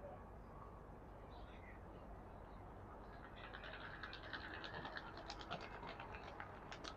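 Birds chirping in a quick run of short, high chirps that starts about three seconds in, over a low steady background hum.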